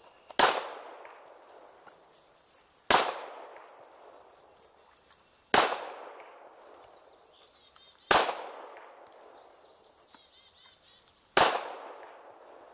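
Handgun firing slow, aimed single shots: five sharp cracks about two and a half seconds apart, each trailing off in a fading echo.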